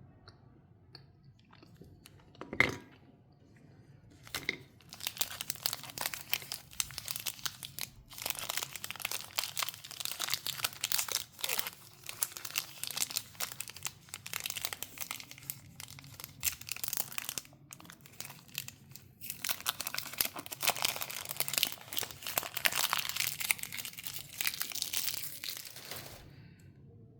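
Chocolate wrapper being unwrapped: dense crinkling and crackling of the wrapper in several runs with short pauses. A single sharp click comes a few seconds before the crinkling starts.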